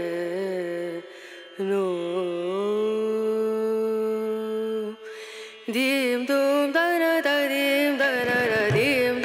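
Background music: a single melody line of held, sliding notes that breaks off briefly about a second in and again about five seconds in, then goes on with quicker, ornamented notes.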